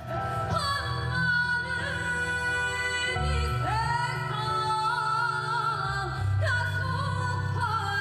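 A woman singing through a microphone, holding long wavering notes that slide up into pitch, over a low sustained instrumental accompaniment.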